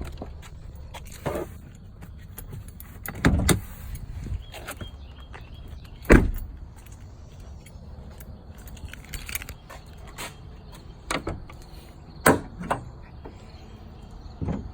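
Clicks and knocks as a pickup's hood is released and raised, the loudest a sharp thump about six seconds in, with others about a second, three seconds, eleven and twelve seconds in. Under them runs a low steady rumble, the LML Duramax 6.6 L V8 turbodiesel idling.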